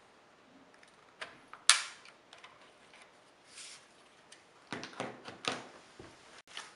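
Plastic clicks and knocks of a laptop battery being unlatched and pulled out of an ASUS U31JG, with one sharp click a couple of seconds in. Later comes a quick run of knocks as the battery is set down on a table.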